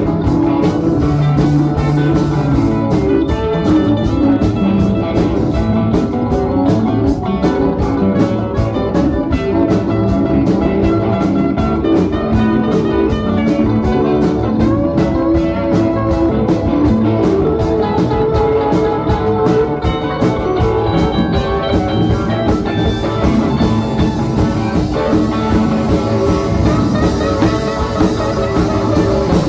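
Live blues-rock band playing: electric guitars, bass guitar, keyboard and drum kit. Fast, steady cymbal strokes run through most of it and drop away about three-quarters of the way through.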